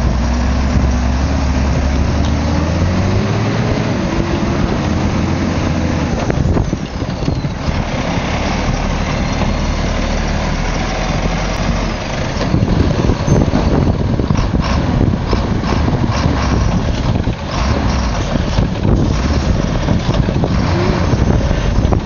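Diesel engine of a loaded logging truck running under load as the truck drives through deep mud. The engine note climbs over the first few seconds, then settles back.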